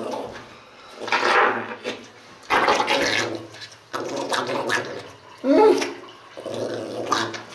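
A towel rubbing over a small wet poodle's fur in several bursts as the dog is dried, with one short throaty vocal sound about five and a half seconds in.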